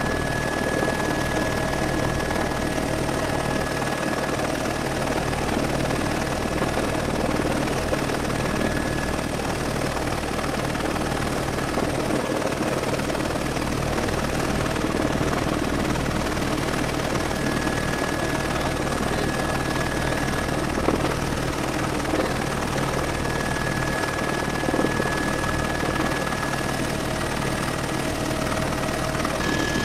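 Helicopter in flight heard from inside the cabin: a steady rotor and engine drone with a thin high whine that fades for a while and returns.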